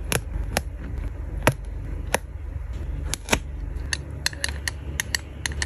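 Light, sharp clicks and taps of tweezers and long fingernails on a plastic sticker sheet and a clear acrylic block as round stickers are picked off and pressed on, a few spaced taps at first, then quicker taps over the last second and a half.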